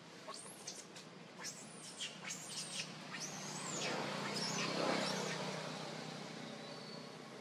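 Newborn macaque giving a series of thin, high squeaks, most in the first three seconds and a few more near the middle. A passing vehicle swells to its loudest about five seconds in, then fades.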